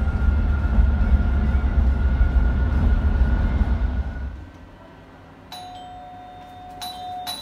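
Road noise inside a car at highway speed, a loud low steady rumble that cuts off about four seconds in. A second or so later a quieter held chime-like tone starts, with a few light ticks near the end.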